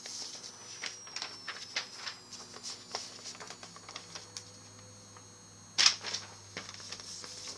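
Loose sheets of paper being handled and shuffled: a run of small crackles and rustles, with one louder paper swish about six seconds in.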